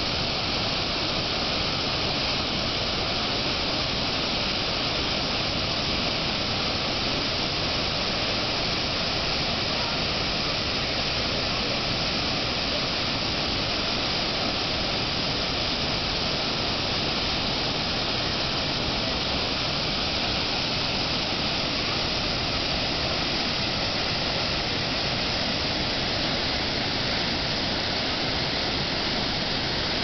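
River water rushing, a steady, unbroken hiss.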